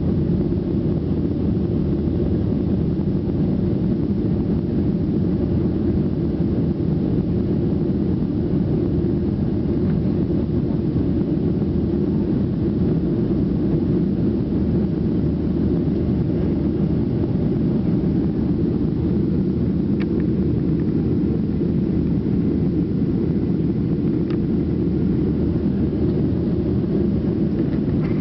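Steady cabin noise inside a Ryanair Boeing 737-800 climbing out after takeoff: the low, even drone of its CFM56 turbofan engines at climb power mixed with airflow over the fuselage.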